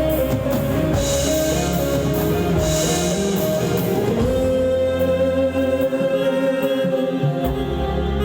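Live dangdut band music without vocals: a held melody line over bass, guitar and drums.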